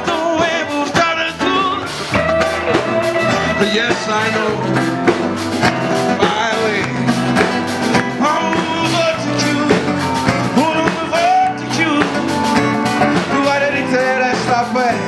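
Live blues band playing: a man sings into a microphone over electric guitars, bass guitar and a drum kit keeping a steady beat.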